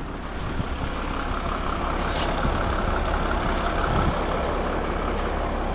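A vehicle engine idling steadily with a low rumble, swelling slightly partway through.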